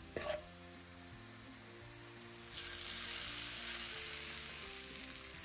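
Hot oil tempering with cumin, dried red chilies and garlic sizzling as it is poured onto lentil curry. The hiss starts about halfway through and slowly dies away.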